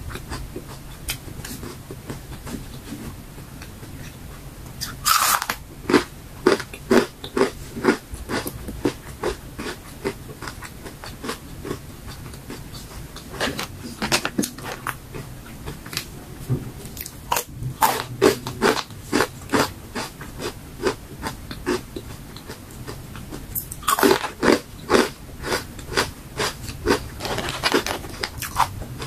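Crisp dried fruit, vegetable and mushroom chips being bitten and chewed close to the microphone, in several spells of rapid crunches with short pauses between them.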